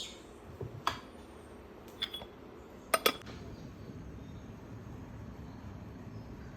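Glassware clinking: about six sharp glass-on-glass clinks over the first three seconds, the loudest pair about three seconds in, then a low steady background.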